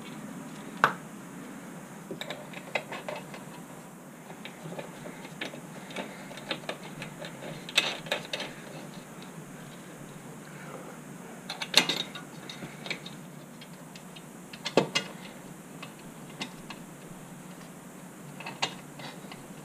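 Scattered small metal clicks and clinks, with a few sharper knocks, of hardware and hand tools being handled while plow-mount U-bolts are fitted through an ATV's skid plate.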